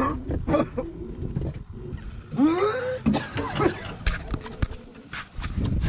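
A man's drawn-out wordless groan of disgust, its pitch rising then falling, over scattered knocks of handling in an aluminium boat. It is a reaction to tasting crab-flavoured ice water from a kill esky.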